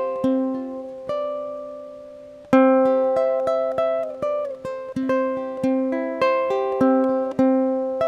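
Background music: a light tune on a plucked string instrument, played note by note with each note fading. It thins out over the first couple of seconds, then picks up again with a strong note about two and a half seconds in.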